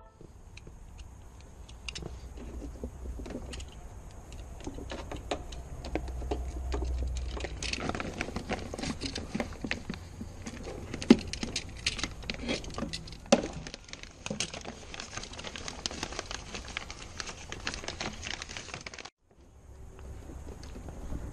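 Handling noises from work inside a bare car door: scattered clicks, taps and rattles of plastic wiring connectors and clips being worked by hand, with a couple of sharper clicks near the middle.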